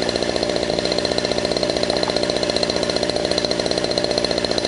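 Century Predator gasser RC helicopter's small two-stroke gasoline engine running steadily, with a fast, even pulsing and no revving, as it turns the main rotor.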